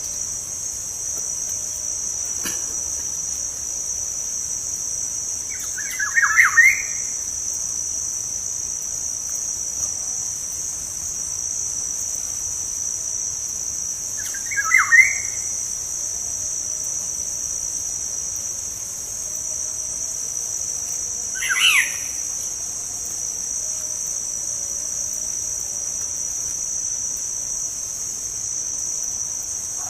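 Black-naped oriole (kepodang) giving three short whistled calls about seven seconds apart, over a steady high-pitched insect drone.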